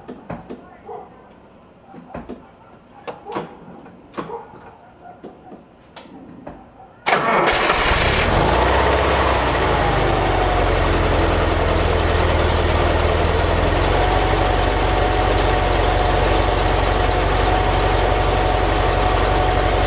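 A few faint clicks and knocks, then about seven seconds in the freshly tuned 1958 Porsche 356A's air-cooled flat-four engine starts, catching almost at once, and settles into a steady cold idle. It is nice and smooth, hitting evenly on all four cylinders: the sign of correctly set points, plugs and ignition timing.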